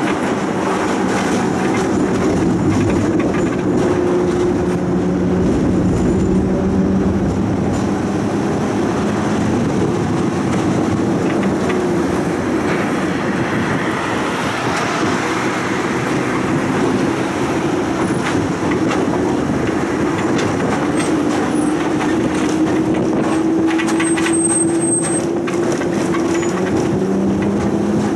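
Electric street tram running along its tracks, heard from inside: a steady rumble of wheels on rail under a motor hum that slowly rises and falls in pitch, with scattered clicks of the wheels over rail joints.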